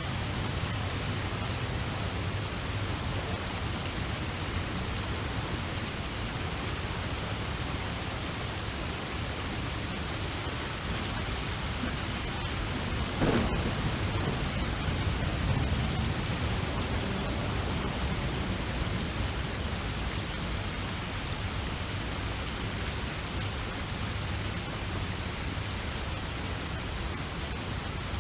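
Steady rainfall with a thunderclap a little past halfway, a sharp crack followed by a few seconds of low rolling rumble.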